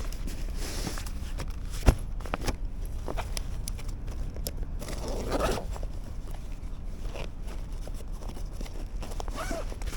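Gear being handled: scattered rustling and small clicks, with one sharp click about two seconds in and a longer scraping rustle about five seconds in, over a steady low rumble.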